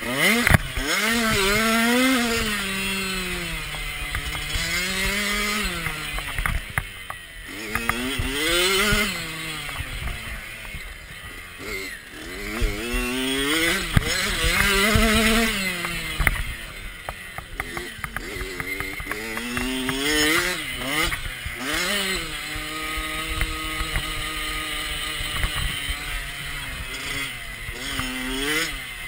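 Kawasaki KX youth two-stroke motocross bike engine revving hard, its pitch climbing and dropping every second or two as the rider opens and shuts the throttle and shifts through the gears, with a stretch of steady throttle about two-thirds of the way through. Scattered knocks from the bike over the rough track.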